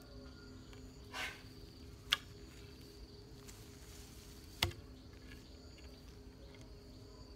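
Insects chirring steadily in the background, a thin high tone, with a few sharp knocks or snaps over it; the loudest is about four and a half seconds in.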